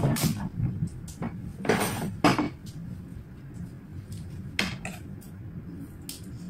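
Handling noise from flower arranging: a series of short rustles and light clicks as flower stems, cellophane wrapping and scissors are handled. Scissors come into use near the end.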